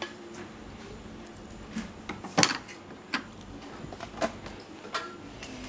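Light clicks and clinks of metal parts being handled at a workbench: about half a dozen short, separate knocks spread over a few seconds, the loudest about two and a half seconds in.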